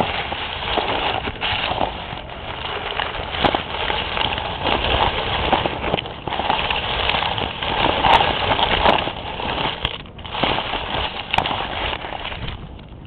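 Rustling and crackling of grass blades rubbing against the camera and its microphone as it is pushed through the lawn, with a brief lull about ten seconds in.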